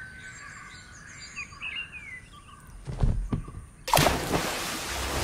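Birds chirping softly, then two low thuds about three seconds in. About four seconds in comes a sudden loud splash of water into a puddle, followed by a steady hiss.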